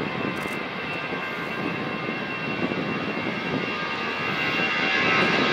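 Airbus A320-family airliner's twin jet engines running as it rolls along the runway: a steady rush with a thin high whine, growing slightly louder near the end.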